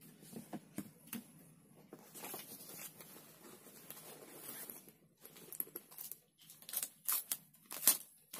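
Rustling and crinkling of packaging, with scattered clicks and taps as the hard plastic drone and its accessories are handled. The sharpest clicks come in the last two seconds or so.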